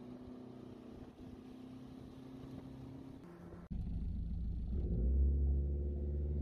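Motorboat engine running steadily with the churn of its wake. About two-thirds of the way through the sound cuts to a louder, deeper steady rumble that swells a second later.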